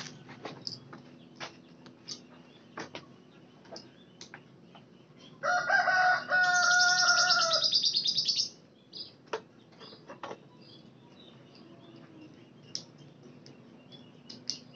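A rooster crowing once, loudly, for about three seconds in the middle, over scattered short chirps of small birds.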